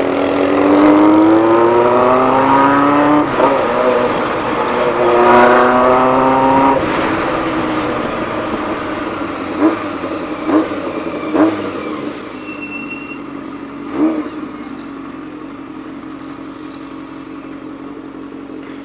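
Honda CBX 750 inline-four engine accelerating through the gears. The pitch climbs, drops at a shift about three seconds in, and climbs again. The engine then eases off, with four short throttle blips as it slows and settles to a lower, quieter run.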